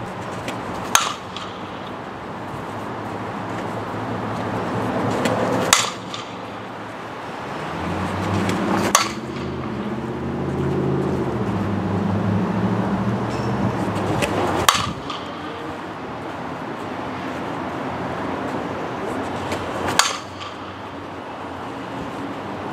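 A softball bat striking pitched softballs: five sharp hits, each several seconds apart, over steady outdoor background noise.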